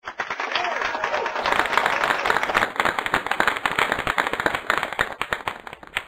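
Audience clapping and applauding, starting at once at full strength and cutting off abruptly after about six seconds.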